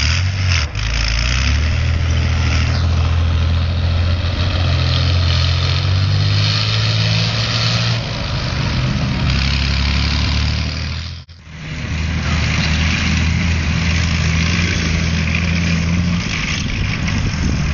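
BMP-1 infantry fighting vehicle's UTD-20 six-cylinder diesel engine running steadily as the tracked vehicle drives across a field, with a rushing noise of the running gear over it. The sound drops out briefly about eleven seconds in, then resumes.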